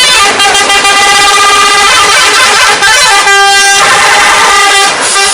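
Bus's multi-tone 'telolet' air horn sounding loudly, several horn tones held together as a chord that changes partway through, like a short tune.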